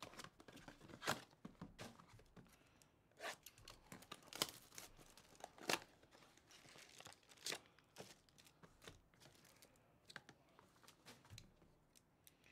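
Cardboard trading-card box being opened and the plastic shrink wrap of a mini-box inside being torn off and crinkled, in a series of short, faint rustles and tears.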